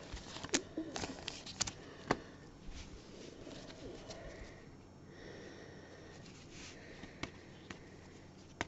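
Baseball trading cards being handled: light clicks and taps of cards flicked and sorted, several in the first couple of seconds and two more near the end, with faint rustling in between.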